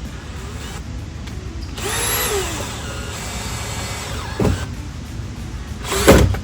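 Power drill driving a screw into wood: the motor whirs up for a few seconds, its pitch rising and falling. It is followed by two short bursts near the end, the last the loudest.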